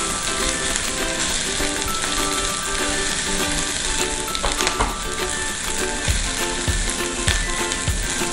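Green chillies and aromatics sizzling steadily in hot oil in a nonstick frying pan while being stir-fried with a spatula.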